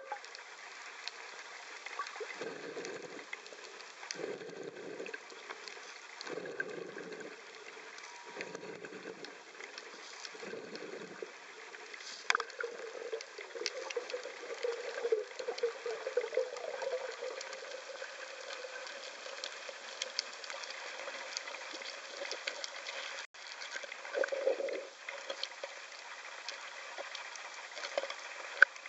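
Underwater sound through the camera's housing: water swishing past in even pulses about every two seconds for the first eleven seconds, then a longer rushing, over a faint steady crackle.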